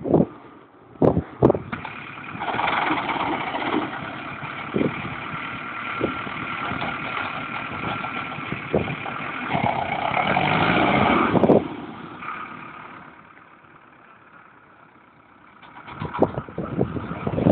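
Farm tractor's diesel engine working under load as its front loader pushes snow, growing louder and busier to a peak about ten seconds in, then dying away. A few short knocks or gusts on the microphone come near the start and the end.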